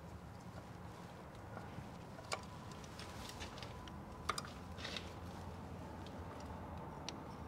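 A few sharp metallic clicks and a short scrape from a screwdriver and pick working at the CAT C15's front crankshaft seal to pry it out, over a steady low hum.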